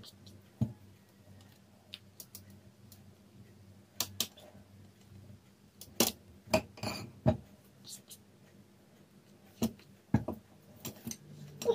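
Kitchen utensils clinking and tapping against bowls and dishes while a cake filling is being spread level. The taps are scattered, a few louder ones come about six to seven seconds in, and a faint steady hum runs beneath.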